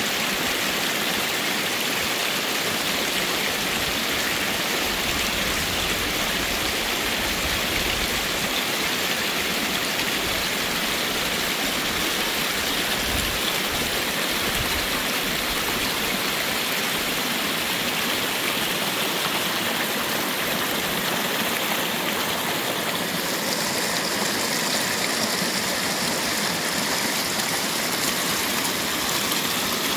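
Small forest stream rushing and splashing over stones and roots, a steady rush of running water.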